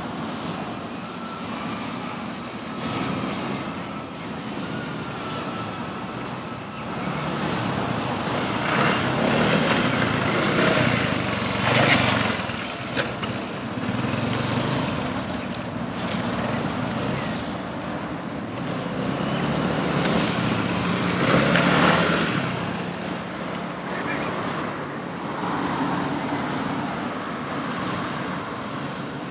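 Motor vehicle noise: a steady engine-and-tyre sound with two louder passes that swell and fade, about twelve and twenty-two seconds in.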